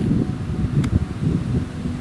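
Squall wind gusting at 12–15 m/s and buffeting the microphone: a low, uneven rumble that rises and falls with the gusts. A single faint tick sounds a little under a second in.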